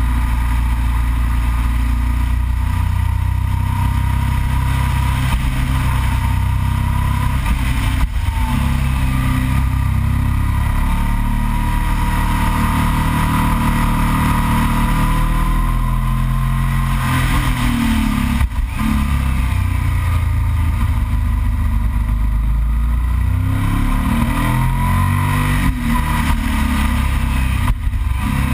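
Yamaha TDM 900's parallel-twin engine running under way, its revs rising and falling through the curves, with a few brief dips in the sound.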